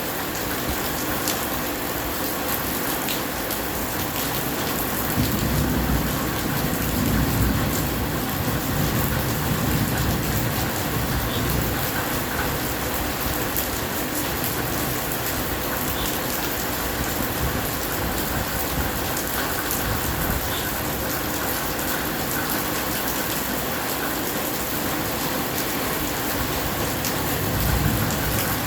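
Steady rain falling, an even hiss. A low rumble of thunder swells about five seconds in and carries on for several seconds, and a shorter low rumble comes near the end.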